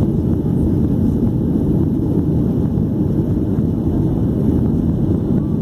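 Steady low cabin noise of a Boeing 737-800 in flight, heard from a seat behind the wing: the CFM56-7B engines and rushing air making an even, unbroken din.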